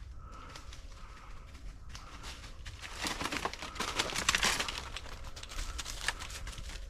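Dry field cover, grass and brush, crackling and rustling as someone pushes through it on foot, growing thicker and louder in the middle and loudest about four seconds in.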